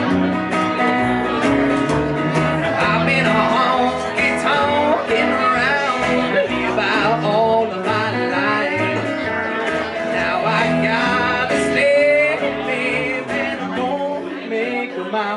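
Live band playing: electric guitar, upright double bass and acoustic guitar, with a man singing lead.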